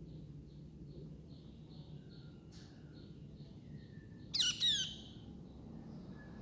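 Baby birds cheeping: a regular run of faint high cheeps, about two or three a second, and about two-thirds of the way through a louder pair of sharp calls that fall in pitch.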